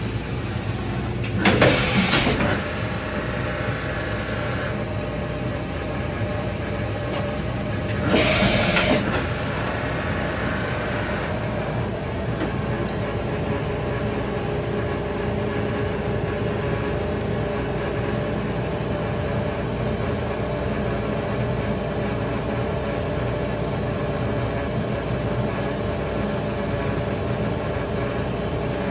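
Makino PS95 CNC vertical machining center running with a steady mechanical hum, broken twice, about 1.5 s in and again about 8 s in, by a loud hiss lasting about a second.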